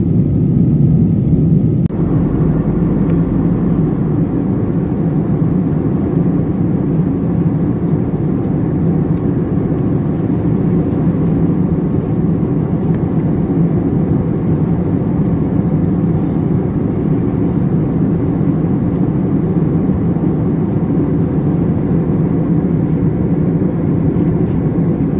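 Steady cabin noise of a jet airliner in flight: engine and airflow noise heard inside the cabin, with a slight shift in the sound about two seconds in.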